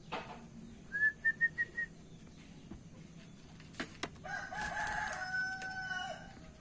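A quick series of five short chirps from a small bird, then a rooster crowing once for about two seconds.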